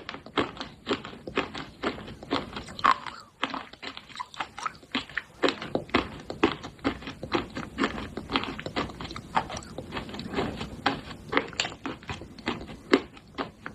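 Biting and chewing pieces of roasted clay pot: a dense, irregular run of sharp crunches, several a second.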